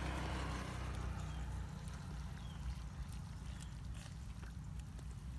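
Hands sloshing and squelching through shallow muddy water, loudest in the first second or so, over a steady low rumble.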